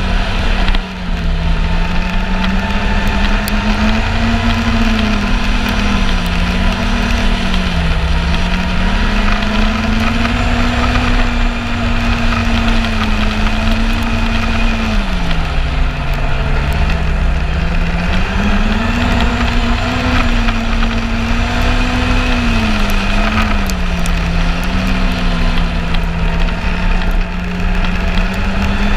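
Yamaha Apex snowmobile's four-stroke inline-four engine running at trail speed. Its pitch rises and falls as the throttle eases off and back on, dipping lowest about halfway through, over a steady rushing noise.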